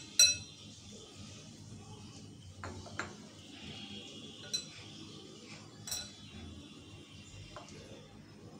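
A glass tumbler of water clinks against a glass mixing bowl while hands mix wheat flour and water into dough. There is one sharp ringing clink just after the start, then several fainter clinks and taps around three, four and a half, and six seconds in.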